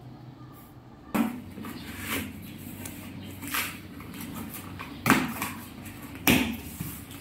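Household items and packaging being handled: about five short knocks and rustles, the loudest two about five and six seconds in.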